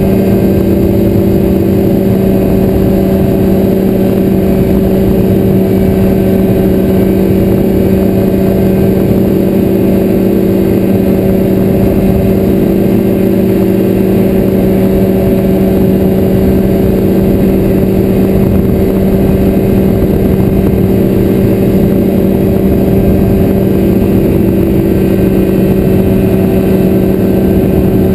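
Ultralight trike (motorized hang glider) engine and propeller running steadily at cruise power in flight, a constant even drone, with wind rushing over the microphone.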